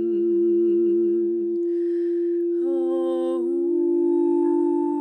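A woman's voice toning long wordless notes over the steady ring of a crystal singing bowl. Her first note wavers in pitch, then she breathes in about two seconds in and sings a new, slightly higher note that steps between a few pitches.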